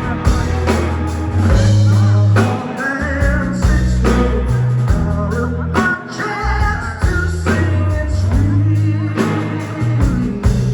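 Rock band playing live: electric guitar over loud, shifting bass notes.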